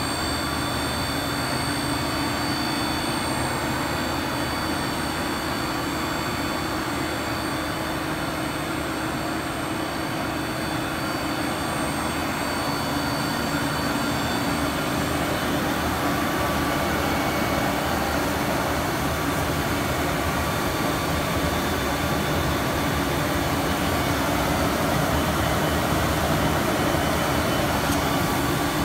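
A blown film extrusion line running: the steady whirring of its cooling blowers and drive motors, with a few steady high whines over it, growing a little louder toward the end.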